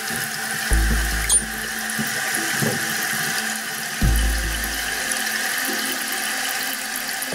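Toilet tank refilling: water from the fill valve pours and splashes steadily into the tank of an American Standard Champion 4 toilet, with a low thump about every three seconds.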